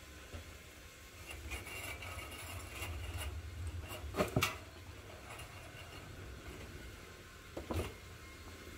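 Shopping trolley being pushed along a smooth store floor: a low steady rumble of the wheels with scattered rattles and clicks of the wire basket, loudest as two sharp knocks about halfway through and another short knock near the end.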